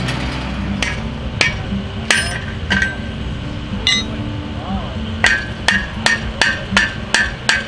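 Hammer blows with a short metallic ring against a wooden fence post: several spaced strikes, then a quicker run of about eight strikes, roughly three a second, in the second half.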